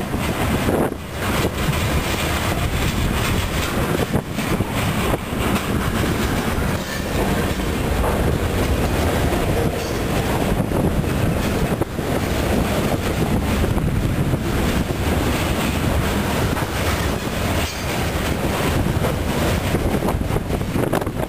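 Freight train cars rolling past close by: a steady rumble of steel wheels on the rails with repeated clacks.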